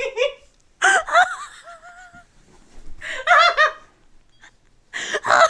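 High-pitched laughter in three bursts about two seconds apart, with a long wavering squeal of laughter after the first.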